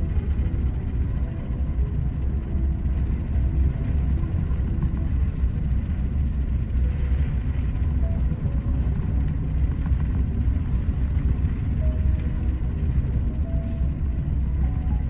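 Steady, loud low rumble aboard an oil tanker in heavy seas, the noise of wind, breaking waves and the ship itself blended together, with a few faint short high tones over it.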